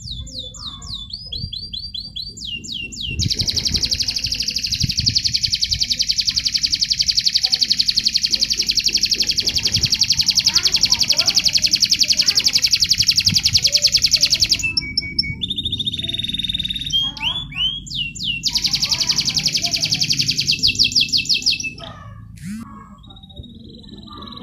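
Domestic canary singing a contest-style song of fast repeated trills, high and even. A loud rolling trill holds for about ten seconds. Varied short phrases and a second loud trill follow, and the song falls quieter near the end.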